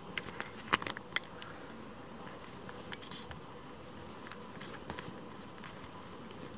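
A kitten's paws and claws scratching and rustling on a fleece blanket: a quick cluster of sharp little clicks within the first second or so, then scattered faint ticks over a steady faint hum.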